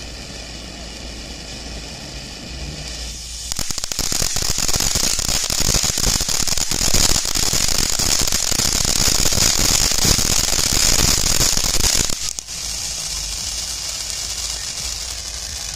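Ground fountain firework (TNT Fireworks Eternal Eruption) spraying sparks with a steady hiss. About three and a half seconds in it breaks into a louder, dense crackle that lasts about eight seconds, then drops back to the steady hiss.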